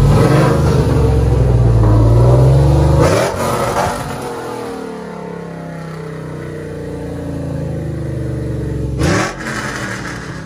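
Ram 1500's Hemi V8 with an aftermarket HPT performance camshaft, held at raised revs for about three seconds, blipped once more, then dropped back to a loping idle. About 9 s in it gives one more quick rev that rises sharply and falls away.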